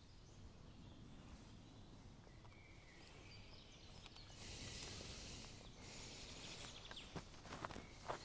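Quiet forest ambience: a faint, steady low rumble, with a soft rustling hiss for about a second around the middle and a few light ticks near the end.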